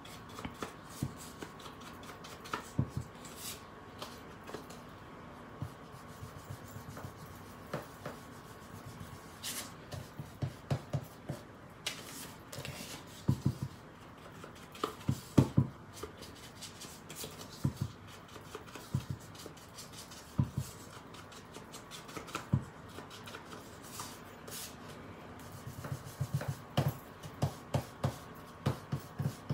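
Blending brush dabbed on an ink pad and rubbed along the edges of embossed cardstock: soft irregular taps in quick runs, with brushing rubs in between.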